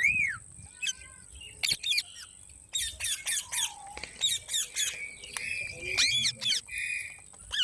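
Pet green parrot squawking and calling: a run of short squawks, clicks and whistled notes, with a few longer held calls in the second half.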